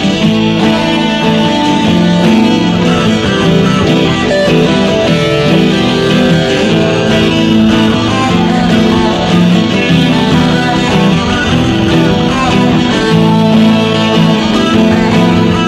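Guitar-driven 1990s rock song, played at a steady, loud level.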